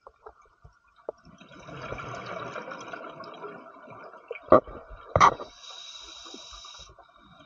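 Scuba diver breathing through a regulator, heard underwater: a gurgling rush of exhaled bubbles, two sharp knocks about four and a half and five seconds in, then a steady hiss as the next breath is drawn.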